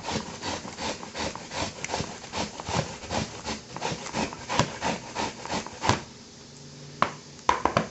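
A kitchen knife slicing through cabbage onto a cutting board in quick, even chops, about four or five a second. The chopping stops about six seconds in, and a few separate knocks follow near the end.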